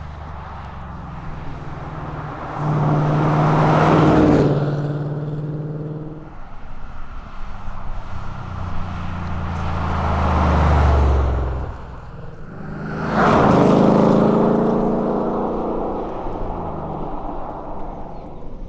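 Ford Mustang Dark Horse's 5.0-litre Coyote V8 exhaust, revved in three swells, each climbing and then dropping back toward idle.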